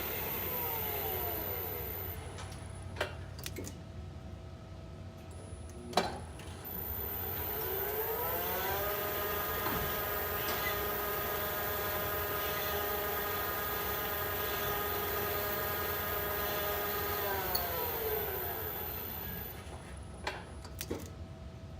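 Elevator drive motor whine sliding down to a stop, then a few clicks and a sharp clack from the lift's brake and relays. About eight seconds in, the layered whine rises as the car sets off, runs steady for about nine seconds and slides down again, followed by a couple more clicks.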